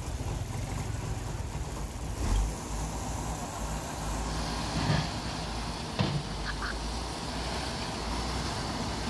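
Heavy diesel tow truck's engine running steadily, with a few short knocks about two, five and six seconds in.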